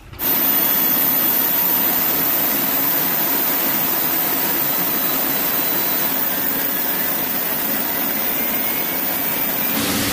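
Fighter jet engine running: a steady rush with a thin high whine over it, starting suddenly just after the start.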